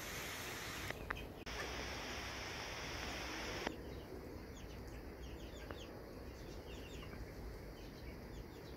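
Chickens clucking over a steady background hiss, with quick high chirps from about four seconds in.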